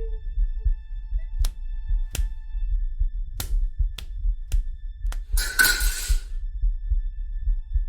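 Film sound design: a low, throbbing, heartbeat-like pulse, with a few sharp clicks and a short, harsh noisy burst about five seconds in.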